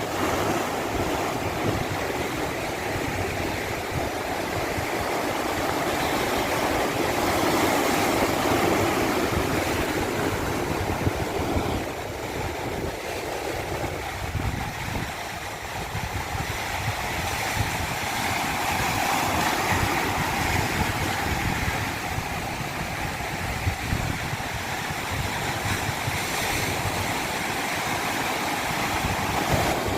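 Rushing water of a natural stream, a steady rush that swells and eases slowly.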